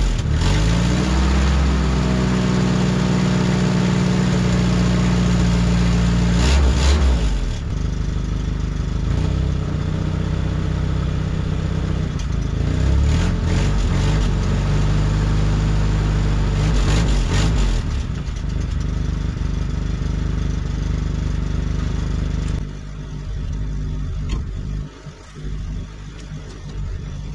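1952 Willys Overland 4x4 truck's engine running in gear with the truck up on jack stands, turning its wheels freely in four-low reverse and then in rear-wheel drive only. The engine speed rises about a second in and again a few times. Near the end it drops to a quieter, lower run.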